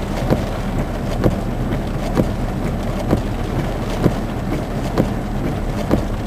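Rain and steady vehicle rumble heard from inside a car, with a regular swish-thump about once a second from the windshield wipers sweeping.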